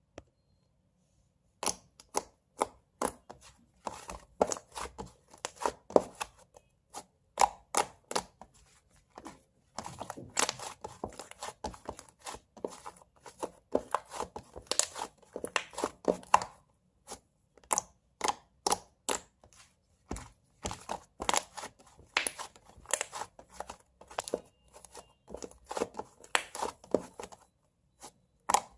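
Irregular series of sharp, crisp clicks and snaps close to the microphone, starting about a second and a half in, some single and some in quick clusters with short pauses between.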